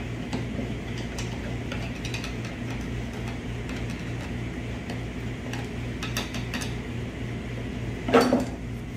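Metal clinks and knocks as the steel clutch drum and ring gear assembly of a 6L80 automatic transmission is handled and worked at, trying to free a ring gear that won't come out, with one louder clunk near the end.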